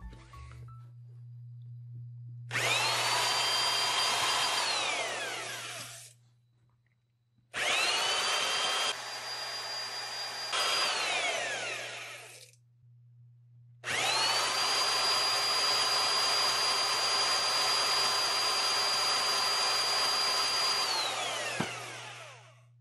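Electric drill spinning a 3D-printed gas engine over by its flywheel shaft in three runs of several seconds each. Each run whines up to speed, holds steady and winds down. The engine does not catch.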